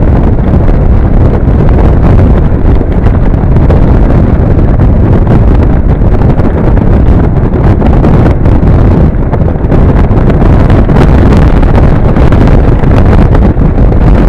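Steady wind rumble on the microphone over a Honda NC700 motorcycle riding a rocky dirt track, with the bike's engine and tyres on loose stones mixed in.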